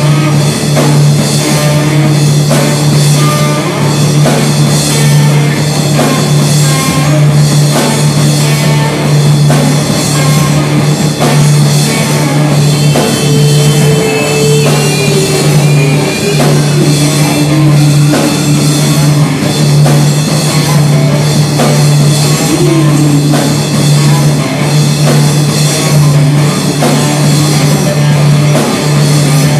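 Live rock band playing loudly: a drum kit and electric guitars over a held low note.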